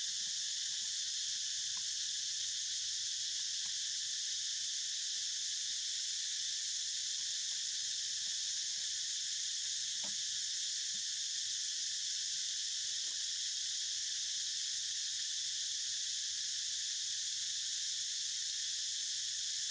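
Steady, unbroken drone of an insect chorus, with a few faint ticks, one about halfway through.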